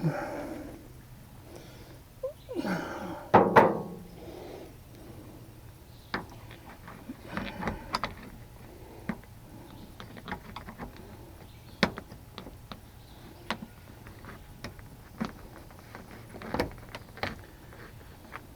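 Scattered clicks, taps and knocks of hand tools, screws and plastic trim clips as a pickup truck's inside door panel is worked loose, with a short scraping stretch a few seconds in.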